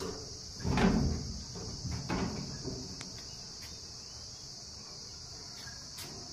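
Crickets chirring steadily, a continuous high hum. About a second in there is a louder rustling knock, and a smaller one about two seconds in.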